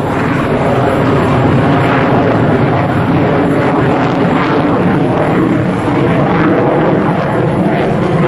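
F-16A Block 15 fighter jet's single turbofan engine, a loud, steady jet roar as the aircraft dives through a display manoeuvre.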